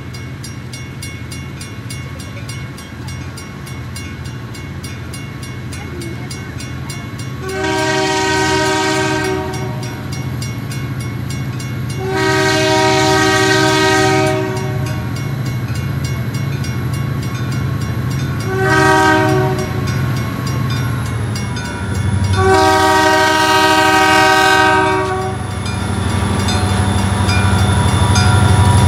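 Diesel freight locomotive's multi-note air horn sounding the grade-crossing signal, two long blasts, a short one, then a long one, as the train approaches. Under it runs the low rumble of the locomotives, growing louder near the end as the train reaches the crossing.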